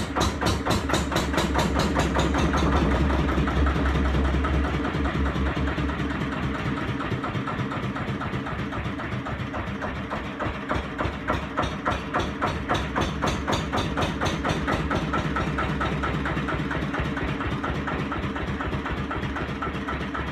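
Freshly rebuilt 1936 Lister CS 5/1 single-cylinder diesel stationary engine running just after a hand-crank start, set at 600 rpm, with a steady, even beat of its firing strokes. It is loudest a few seconds in, then eases slightly.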